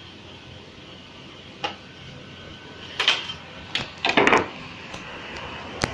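Several sharp clanks and knocks of metal cookware and grill utensils being handled at a fish grill. The loudest cluster comes about four seconds in, over a steady background hum.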